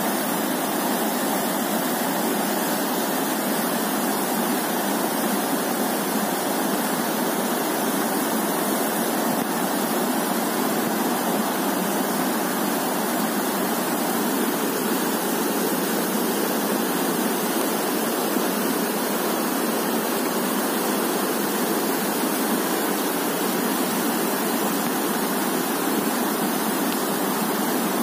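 A river in flood, its muddy water rushing and churning in a steady, unbroken wash of noise.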